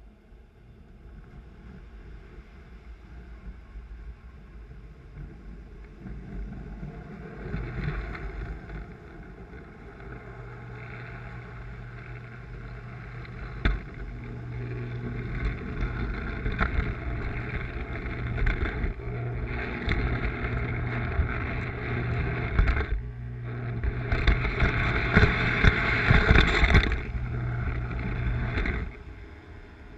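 Lionel toy electric train running on three-rail tinplate track: a steady low motor hum with a rumble of wheels on the rails. It grows louder from about a quarter of the way in, dips for a moment past the middle, is loudest near the end, then drops away shortly before the end.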